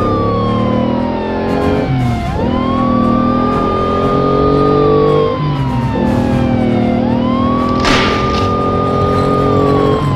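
Police siren sound effect in a slow wail: it rises, holds high, then slides down, about twice through, over background music. A short noisy burst comes about eight seconds in.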